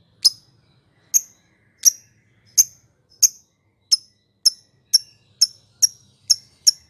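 Lovebird giving a series of short, sharp, high-pitched chirps, about twelve in all, spaced close to a second apart at first and quickening to two or so a second near the end.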